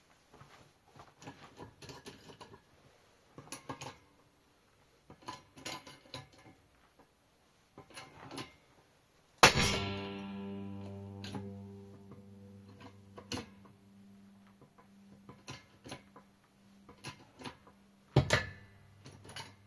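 Small metal clicks and taps from handling gearbox parts, then about nine seconds in a sharp metallic clang that rings on for several seconds like struck steel, and another sharp knock near the end.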